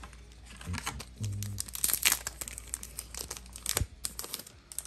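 Foil wrapper of a Dragon Ball Super booster pack crinkling and tearing open in a run of sharp crackles, loudest about two seconds in.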